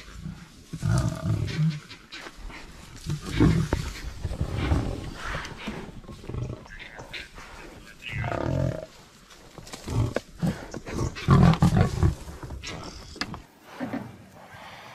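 Lions growling in repeated loud bursts while clashing with Cape buffalo.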